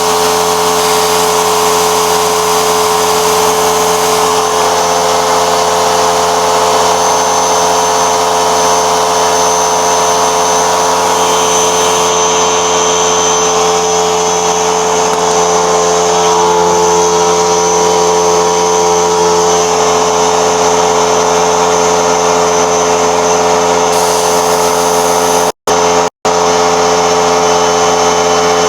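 A machine's motor running steadily at one fixed pitch, with a constant hum and hiss. The sound drops out twice, very briefly, near the end.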